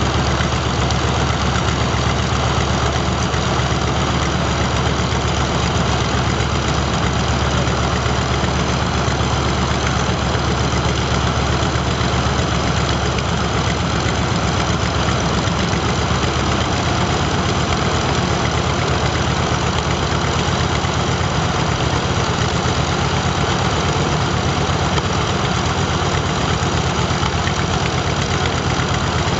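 Mitsubishi A6M5 Zero Model 52 fighter's Nakajima Sakae 14-cylinder twin-row radial engine running steadily at idle on the ground, propeller turning. Its low drone shifts slightly about halfway through.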